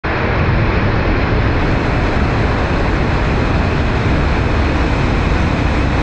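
Waterfall pouring down at close range: a loud, steady rush of falling water, heaviest in the low end.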